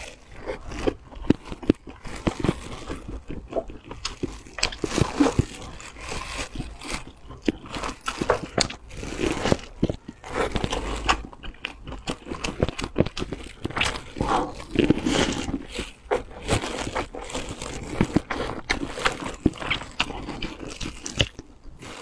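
Crunching bites and chewing of crisp, chili-crusted fried flatbread: an irregular, unbroken run of crackling crunches.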